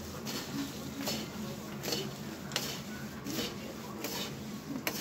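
A spoon stirring and tossing dry, fried chivda (flattened rice, peanuts and makhana) in a kadhai, in short irregular scraping strokes about once or twice a second, over a steady low hum.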